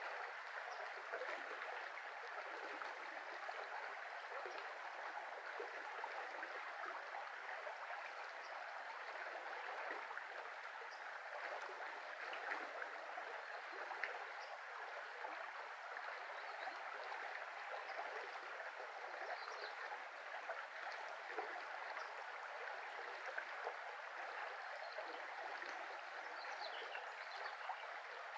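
A small river flowing over shallow riffles: a steady rush and babble of water.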